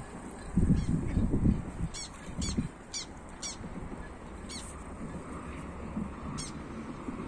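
Mallard hens calling in a quick series of low, honking quacks about a second in, with several short, high chirps from small birds.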